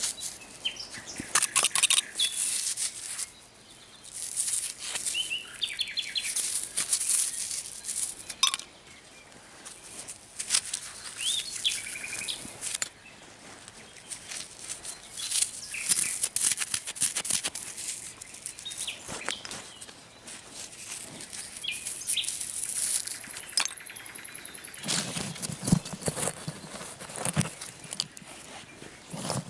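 Gloved hands scraping and rummaging through loose, crumbly soil and roots, a dense run of rustles and scratches, with some heavier thuds near the end. A bird chirps a few times in the background.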